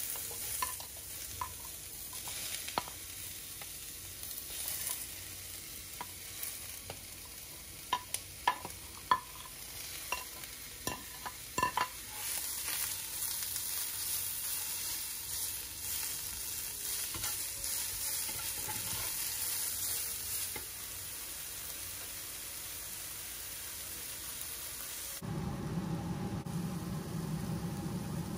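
Bell pepper and onion strips sizzling in hot oil in a cast iron skillet as they are stirred with a silicone spatula. Sharp clicks and taps come through the first half while the vegetables are pushed into the pan, and the sizzle gets louder after that. About 25 s in, the sound switches abruptly to a duller, lower hiss.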